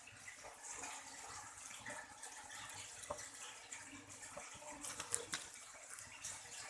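Faint water running from a kitchen tap, with a few light clicks about five seconds in.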